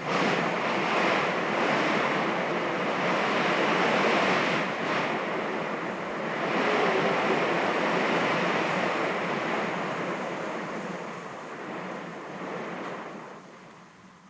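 Stormy wind indoors, gusting and hissing through the cracks of an old window. It swells at the start, eases briefly midway, builds again, then fades away near the end.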